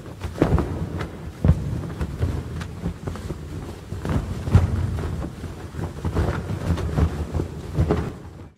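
Wind-like rushing noise over a deep rumble, struck by repeated heavy booming hits about one to two a second. It is the sound-effects track of an animated logo sting.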